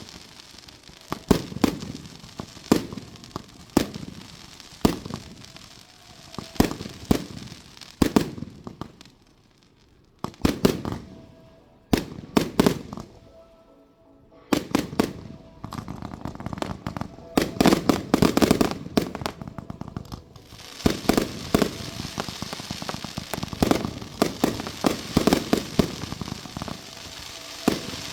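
Fireworks display: aerial shells bursting one after another with sharp bangs and rumbling echoes. There is a brief lull about a third of the way in, then quicker, denser salvos with crackle.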